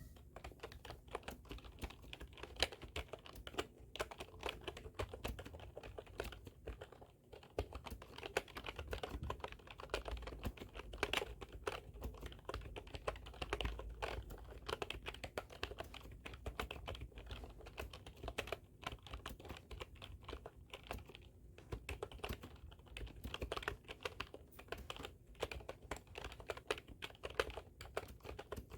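Fast, continuous typing on a computer keyboard: a dense stream of key clicks, broken by a few short pauses.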